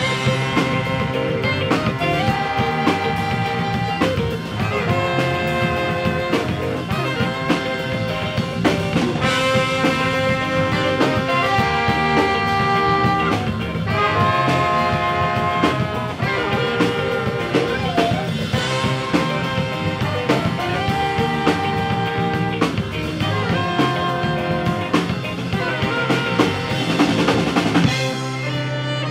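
Live rock band with a horn section of saxophones and trombone playing an instrumental passage of held and repeated horn notes over a drum kit.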